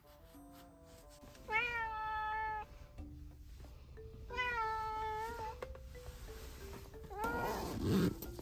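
A young cat meowing three times from inside its pet carrier, each meow drawn out for about a second, the last one rougher. These are a cat's complaining cries on being brought to the vet.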